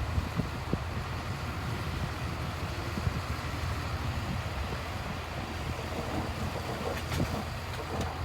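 Diesel engine of heavy earthmoving machinery running steadily: a low rumble, with some wind on the microphone.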